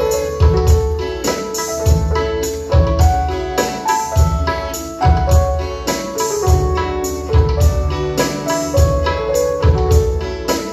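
Live band music with no singing: a keyboard plays held and moving notes over a steady beat of low drum thumps, a little more than one a second.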